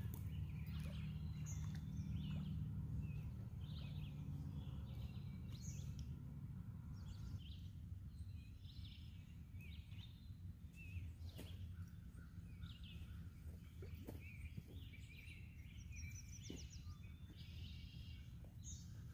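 Birds singing, with many short chirps and trills, over a steady low rumble.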